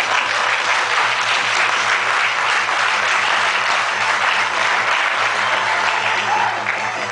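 Audience applauding, a dense steady clatter of many hands clapping that dies down near the end.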